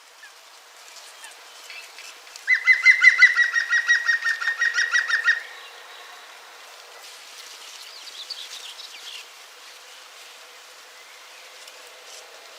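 A songbird singing: a loud, rapid trill of evenly repeated notes lasting about three seconds, falling slightly in pitch, followed a couple of seconds later by fainter, higher chirps over a steady background hiss.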